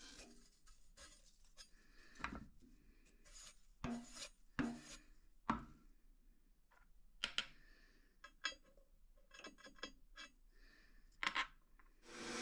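Scattered faint metallic clicks, taps and scrapes of steel drill swarf being pulled off a stopped drill-press bit and a steel plate being shifted on the drill table between holes. The sharpest clicks come in small clusters, with quiet between them.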